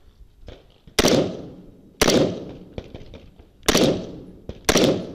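Four rifle shots from a scoped AR-15-style carbine, fired in two pairs about a second apart. Each shot is a sharp crack with a short echo trailing off.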